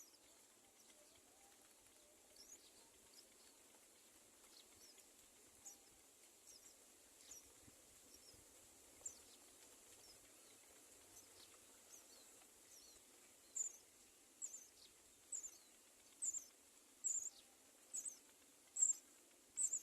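Bird chirping: short, thin, high chirps that fall in pitch. They come scattered at first, then about two-thirds of the way in settle into a regular run of louder chirps, nearly one a second, over a faint steady hiss.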